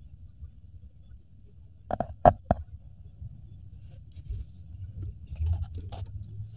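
Metal alligator clips clicking three times in quick succession about two seconds in, as they are clipped onto the 12 V supply leads of an amplifier board. Light crackling follows, over a low hum.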